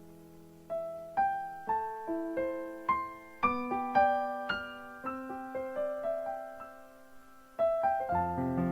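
Background piano music: a slow melody of single notes, each struck and left to fade, becoming fuller chords near the end.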